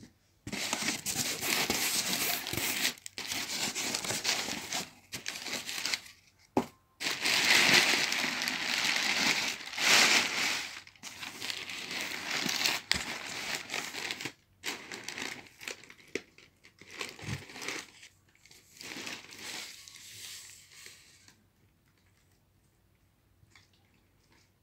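Crumpled packing paper rustling and crinkling in a cardboard box as it is pushed aside and pulled out, loud and dense for the first half, then in sparser, quieter rustles that stop a few seconds before the end.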